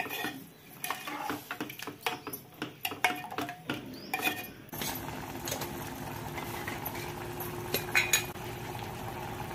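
Steel ladle stirring a watery mutton curry in a metal pot, clinking and scraping against the pot in quick irregular knocks for about the first four and a half seconds. After that, the thinned curry bubbles and sizzles steadily on the heat, with a couple more ladle clinks near the end.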